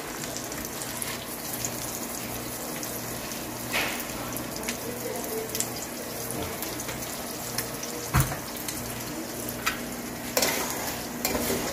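Eggs frying in oil in an aluminium pot on a gas stove, a steady sizzle, with a few sharp knocks.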